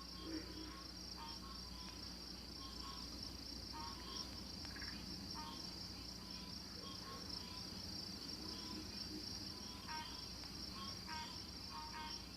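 Faint night insect chorus: a steady high cricket trill, with short lower chirps repeating irregularly over it.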